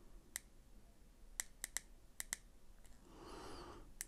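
Small plastic control buttons on an Aspire Rhea X vape mod clicking under a thumb, about seven irregular presses as the profile settings are stepped through.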